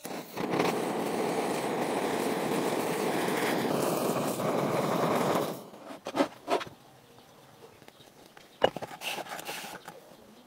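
Handheld butane kitchen torch hissing steadily for about five seconds while it flames the sauce-topped sushi rolls, then cut off, followed by a few light clicks and knocks.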